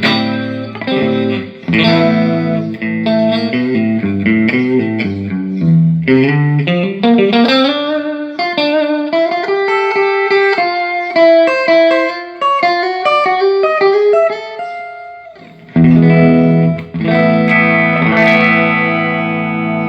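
Electric guitar played through a Peavey Classic 30 tube combo amp, working again after its filter capacitors were replaced. It opens with chords, moves into single-note melodic runs, then a strummed chord rings out near the end after a short break.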